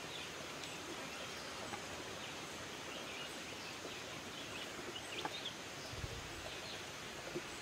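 Forest ambience: a steady even background rush with small birds chirping faintly now and then, and a brief low bump about six seconds in.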